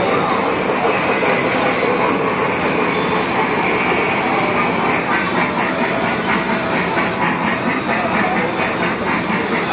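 Small Thomas the Tank Engine kiddie ride train running on its track, with a steady rhythmic clatter of its wheels.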